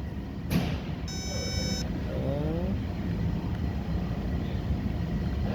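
Steady low rumble, with a click about half a second in, then a short high electronic beep lasting under a second, followed by a brief rising tone.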